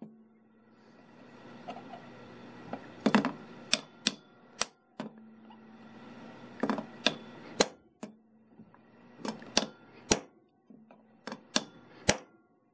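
Hammer striking a steel punch held on a wire rope ferrule sleeve clamped in locking grip pliers: sharp metallic taps in four groups of about three, each group about a second long. Each blow presses an indent into the sleeve to crimp it onto the cable, done without a swaging tool.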